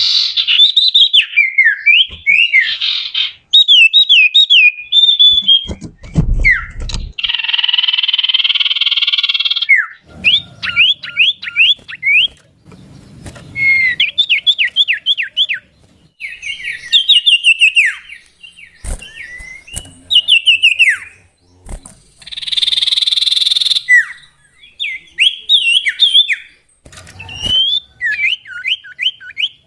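Common iora (cipoh) singing: runs of quick, loud whistled notes, each sliding steeply in pitch, repeated in groups and twice broken by a longer harsh, buzzy note.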